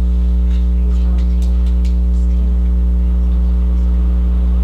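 Steady, loud electrical mains hum with a buzzy ladder of overtones running under the recording, with a few faint clicks in the first couple of seconds.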